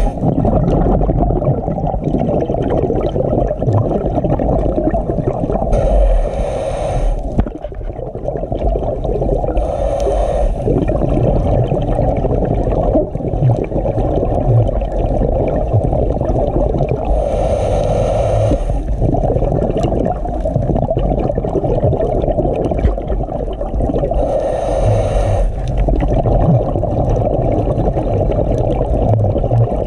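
Scuba regulator breathing heard underwater: four exhalations, each a roughly one-second rush of bubbles, spaced several seconds apart over a steady low underwater rumble.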